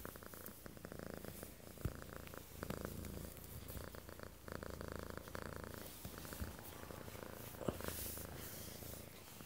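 Domestic cat purring steadily, right up against the microphone as it is stroked, with a couple of brief knocks, about two seconds in and near the end.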